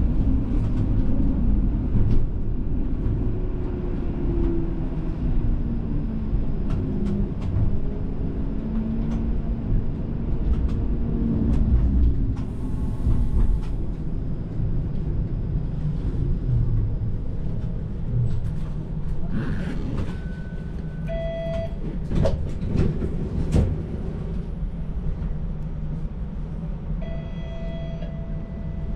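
A TTC streetcar rolling along, heard from inside: a steady low rumble of wheels on rail with scattered clicks. For the first dozen seconds a motor whine rises and falls in pitch. A brief hiss comes about halfway through, and a short steady tone sounds a few times later on.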